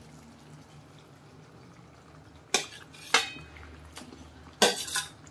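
Steel spatula clinking against a steel plate and kadhai as ground masala paste is scraped off the plate into the pan: a few sharp metal clinks starting about halfway through, after a quiet stretch.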